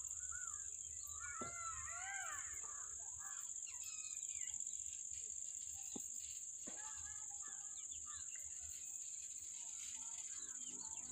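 Birds chirping and calling in short bursts, over a steady high-pitched insect drone and a low rumble of wind.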